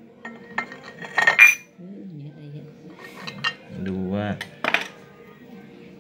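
A small metal tin with a perforated lid clinking and knocking against a ceramic bowl as it is shifted, a string of sharp clinks with the loudest, briefly ringing, about a second and a half in.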